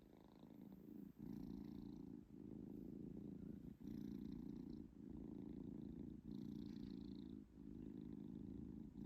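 Three-month-old British Shorthair kitten purring steadily, the purr rising and pausing with each breath about once a second.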